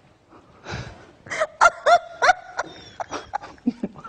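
A woman laughing hard in high-pitched, breathy bursts, about three a second, starting about a second in.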